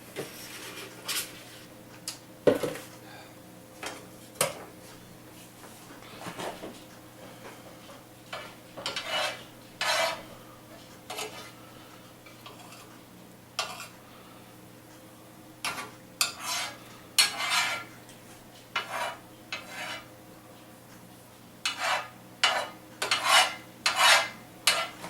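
A kitchen utensil stirring and scraping against cookware, with scattered clinks and knocks, the sharpest about two and a half seconds in, and a quicker run of scraping strokes near the end.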